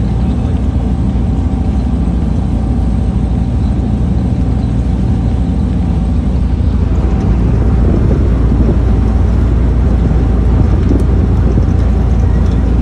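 Steady low rumble of a moving ferry heard from its open deck: the engine's drone mixed with wind on the microphone, with a thin steady whine over it. It grows a little louder about halfway through.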